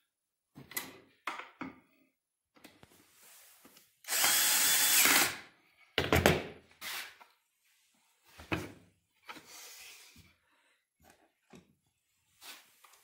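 Cordless drill-driver running steadily for about a second, about four seconds in, driving a screw into the crib's pendulum frame. A few short knocks and clicks come before and after it.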